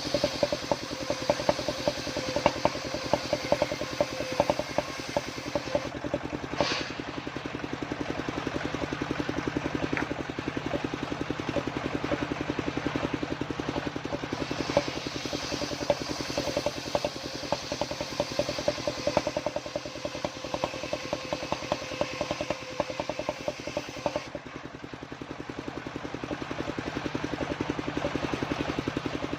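Home-built circular saw rig running steadily on its engine while ripping waru wood, a fast even engine beat under the blade. A brighter cutting hiss rises in two stretches, at the start and again about halfway through.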